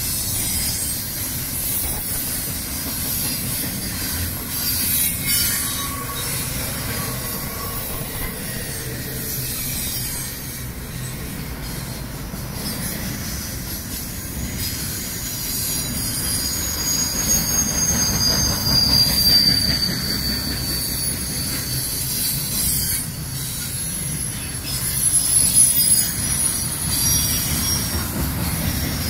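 Double-stack intermodal freight train rolling past: a steady low rumble of steel wheels on the rails, with thin high-pitched wheel squeals coming and going over it, strongest in the second half.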